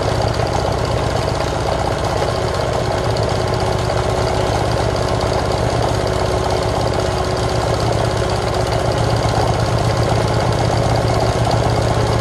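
Meister Class 76 Programatic lightweight sewing machine running steadily, sewing a dense decorative zigzag shortened to a satin stitch: a motor hum under a fast, even clatter from the needle mechanism. It sounds loud because the microphone sits right on top of the machine.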